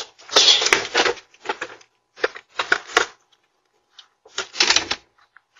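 A pet stroller wheeled over a concrete walk: short, rough rattling and scraping noises in an irregular string, the longest about a second in.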